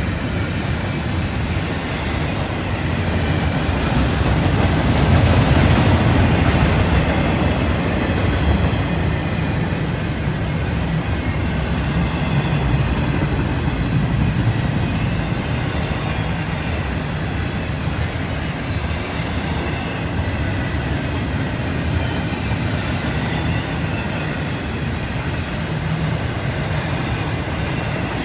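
CSX intermodal freight cars rolling past: a steady rumble of steel wheels on rail with the clickety-clack of wheels over rail joints and a faint high steady ringing. It swells louder about five seconds in.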